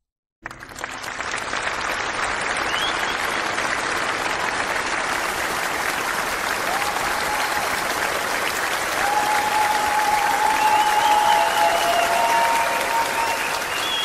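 A crowd applauding steadily, fading in after a brief silence. A few faint held tones sound over it after the middle.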